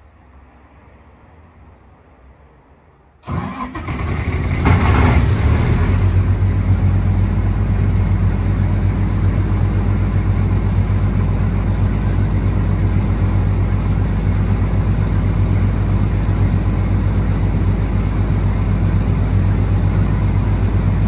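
Wood chipper's engine starting about three seconds in, with a brief louder surge as it catches, then running steadily and loud.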